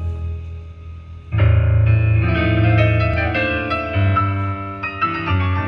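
Recorded music playing through a 1950s Jensen 610 triaxial loudspeaker in an Onken cabinet. A soft passage jumps suddenly, about a second and a half in, to a fuller, louder one.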